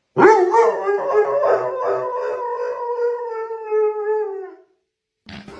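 A dog howling: one long drawn-out call, wavering at first and then held on a steady pitch before it fades out near the end.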